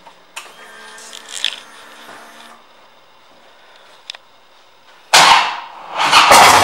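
2011 Harley-Davidson Street Bob with the ignition switched on: a brief electric whir for about two seconds, typical of the fuel pump priming. About five seconds in, the starter cranks and the V-twin fires up, running loudly near the end.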